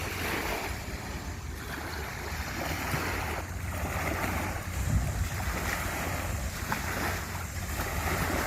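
Sea waves washing in surges every second or two, with a steady low rumble of wind on the microphone.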